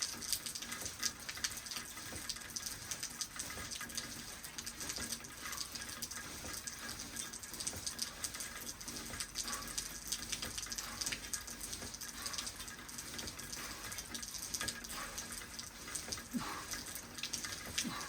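Steady rain falling: a continuous hiss with many small drops pattering and dripping.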